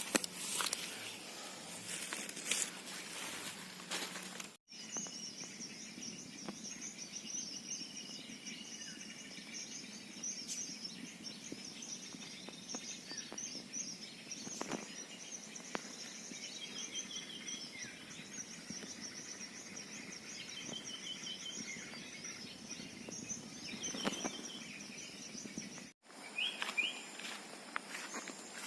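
Mountain forest ambience: a steady, high-pitched chirping chorus from wildlife, with a few scattered clicks and rustles. The sound cuts off abruptly twice, once about five seconds in and again near the end.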